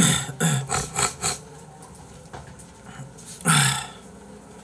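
Modified street cars revving their engines hard, in short loud bursts: several revs in the first second or so and another about three and a half seconds in.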